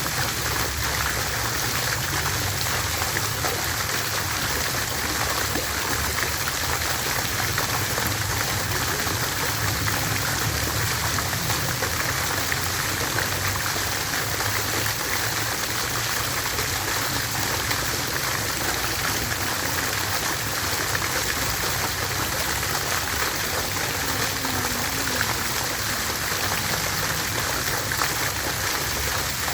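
Water fountain splashing steadily, an even, unchanging rush of falling water.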